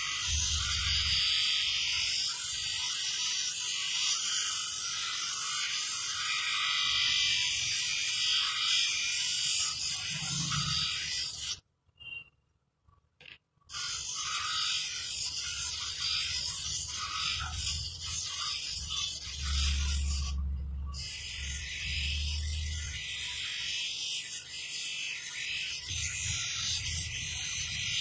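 Spectacle lens grooving machine at work: the lens edge is held against the spinning wheel, making a steady high grinding hiss over the motor's low hum. The sound cuts out completely for about two seconds a little before the middle, and the high grinding drops away briefly a few seconds later.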